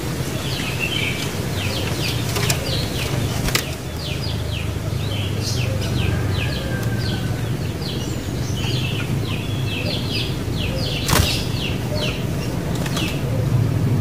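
Sooty-headed bulbuls (kutilang) calling: a busy run of short, quick, falling chirps, over a steady low rumble with a few sharp clicks.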